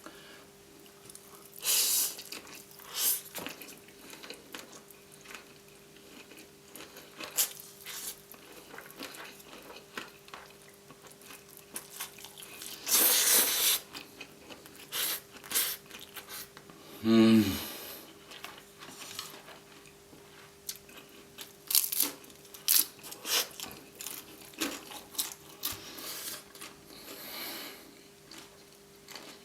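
Close-miked eating of crispy fried seafood noodles and prawn: chewing and crunching with many short wet mouth clicks, and a louder noisy stretch about a second long around thirteen seconds in. Near seventeen seconds there is a brief falling vocal 'mm'.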